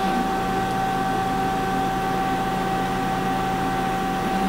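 Steady hum and whine of a laser cutter's fans and air system running, with one constant mid-pitched tone over a low drone.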